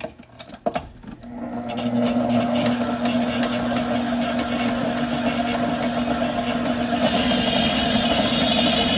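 Electric stand mixer switched on and running steadily, beating mashed bananas into the banana bread batter. A few clicks come first, then the motor's steady hum starts about a second in, and a higher whine joins near the end.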